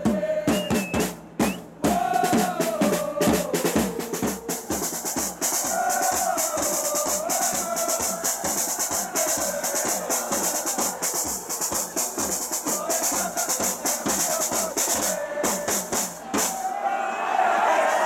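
Football supporters' drums beaten with mallets in a fast, steady rhythm, with the crowd chanting along. The drumming stops near the end, leaving the voices.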